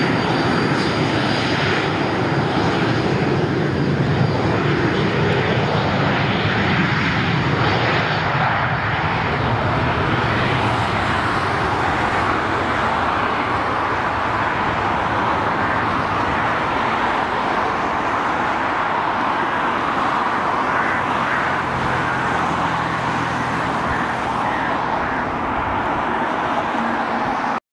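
Twin turbofan engines of a Cessna Citation Mustang (C510) business jet running at takeoff power through the takeoff roll and climb-out: a steady, loud jet noise with a high whine over the first several seconds. It cuts off suddenly at the end.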